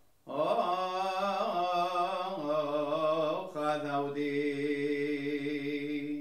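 A Syriac Orthodox priest chanting the words of institution over the Eucharistic bread, solo male voice in long held notes. There is a short break about three and a half seconds in, and then a final sustained note that stops abruptly.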